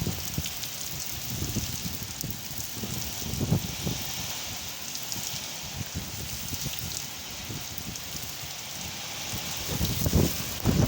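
Heavy rain pouring down in a steady hiss, with low gusts of wind buffeting the microphone now and then, several in quick succession near the end.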